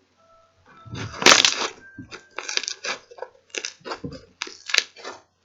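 Toy slime being squeezed and pressed by hand, giving a loud squelch about a second in and then a run of short clicking, crackling pops.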